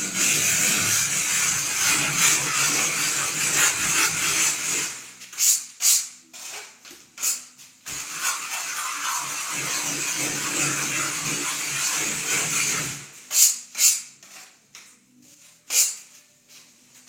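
Scraping of a steel trowel worked over fresh decorative plaster, in two long strokes of about five seconds each, with sharp knocks and clicks of the tool between and after them.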